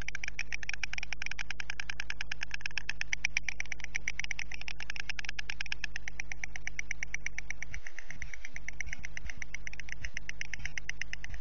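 White storks clattering their bills in a rapid, continuous dry rattle, the territorial display of the nest's owners against intruding storks. A steady low hum lies underneath.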